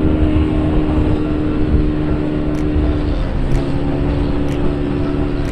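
Yamaha Cygnus X scooter's single-cylinder engine running steadily under way, its note dropping slightly about three seconds in, over low wind rumble. Faint ticks about once a second in the second half.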